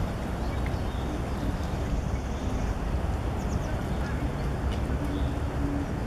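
Steady low outdoor rumble, with a few short low-pitched animal calls, the longest about five seconds in, and a quick run of high chirps about three and a half seconds in.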